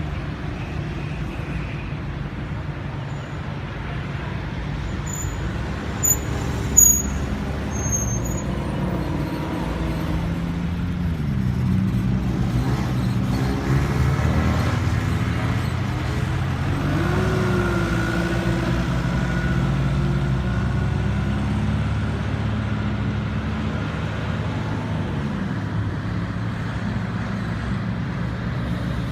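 Road traffic at an intersection, with the engines of cars and heavier vehicles running steadily. About halfway through, engine pitches rise as vehicles speed up. A few short high squeaks and two sharp knocks come around a quarter of the way in.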